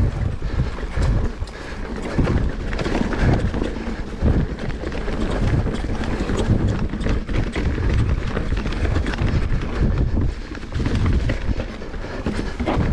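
Wind buffeting the microphone: a loud, steady rushing with gusty low rumbles about once a second.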